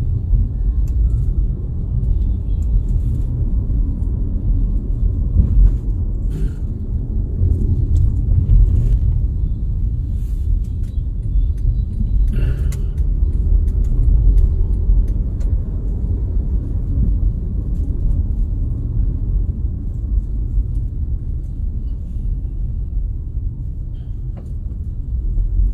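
Steady low rumble of a moving vehicle on the road, engine and tyre noise, with a few faint ticks.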